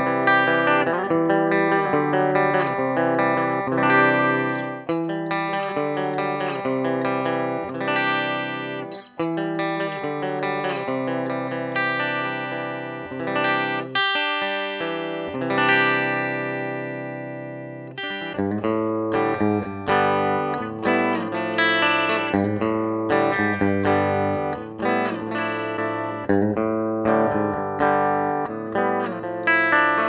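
Les Paul-style electric guitar played through an amp: picked melodic lines and chords with ringing notes. About 14 s in, a chord is left to ring and fade, and from about 18 s a lower, more rhythmic part is played.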